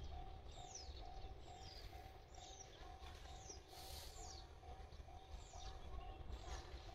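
Railway level crossing warning bell ringing faintly ahead of an approaching train, a single repeated tone a little more than twice a second. Birds chirp alongside with short, falling calls about once a second.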